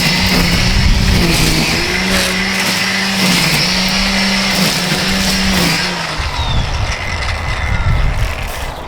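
DeWalt DCST922B 20V brushless string trimmer running at speed, a steady motor hum whose pitch dips slightly now and then as the line cuts, shutting off about six seconds in. Low rumbling noise follows.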